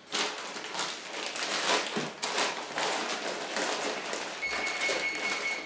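Plastic bag of brown sugar crinkling and rustling as it is scooped out with a measuring cup. Near the end an oven's long, steady electronic beep sounds, signalling that it has finished preheating.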